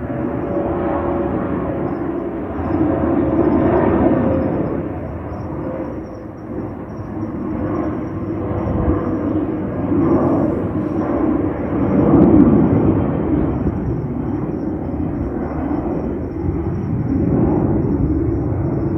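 Jet engines of an Airbus A321 climbing out after takeoff: a loud, continuous rumbling roar that swells and eases several times, loudest a little past the middle.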